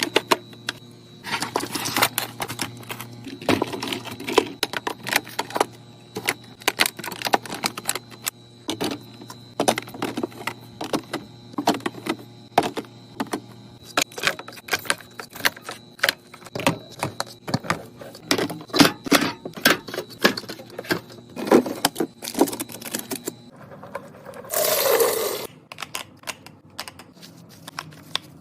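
Rapid clicks and clacks of items and plastic containers being handled, set down and arranged while restocking a mini fridge. A steady low hum lies under them until a cut about 23 seconds in, and a short noisy swish follows a second later.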